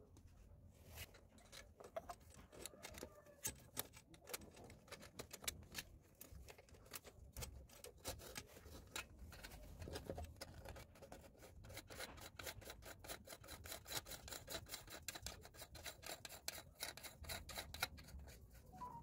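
Faint clicking and rubbing from hands working a basin mixer tap's braided flexible hoses and fixing under a washbasin. The clicks come thicker and quicker in the second half.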